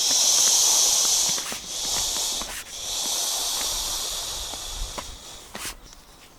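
A loud, steady hiss in three long stretches with short breaks, stopping about five and a half seconds in.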